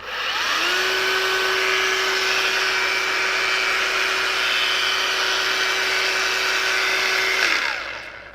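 A cheap, small cordless angle grinder with a cutting wheel fitted, switched on. The motor spins up with a rising whine, runs steadily at one high pitch for about seven seconds, then winds down near the end.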